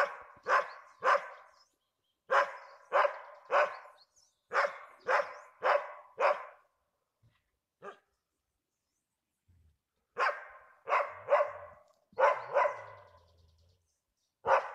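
Dogs barking in quick bursts of three to five barks, with a pause of a few seconds midway, at a bear cub up a tree.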